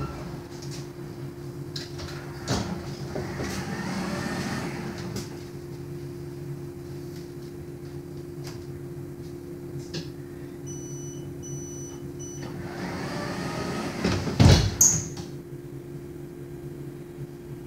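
Inside a Solaris Urbino 12 Electric city bus with a steady electrical hum. Past the middle a run of short high beeps sounds, the door-closing warning, followed by a rising swell and a heavy thump as the doors shut.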